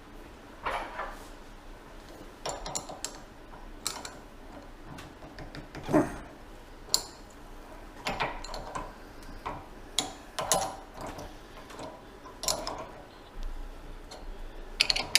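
Irregular metal clinks and knocks of hand tools against a brake part being unbolted on a workbench, the loudest about six seconds in.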